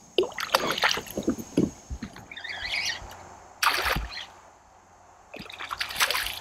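Water splashing in short irregular bursts as a fish thrashes at the surface, with one louder burst a little past the middle.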